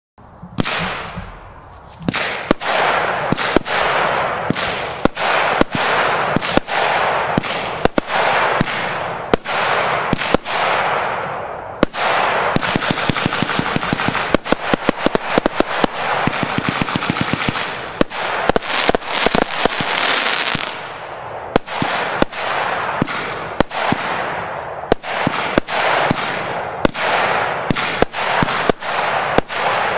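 Bright Sky Fireworks 'Pyrotastic' 70-shot firework cake firing: a steady run of sharp launch bangs, about two or three a second, over continuous crackling and hissing. Fast volleys of rapid shots come around twelve to fourteen seconds in and again around eighteen to twenty seconds in.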